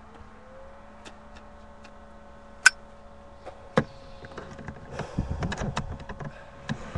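A cigarette lighter flicked twice, sharp clicks about a second apart, followed by smaller clicks and handling rustle.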